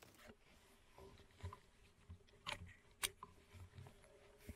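Near silence with a few faint, sharp clicks and soft low knocks, two of the clicks about half a second apart near the middle.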